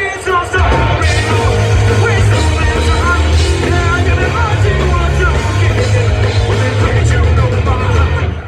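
Live hardcore punk band playing loud, with a singer's voice over a heavy, bass-dominated band sound; the mix is poor, the backline sounding bad. The music drops out briefly near the end.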